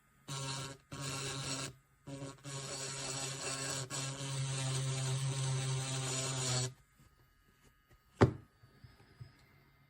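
Cordless electric nail drill motor running with a steady hum. It is switched on and off twice briefly, then runs for about four seconds before stopping. A single sharp click follows about a second later.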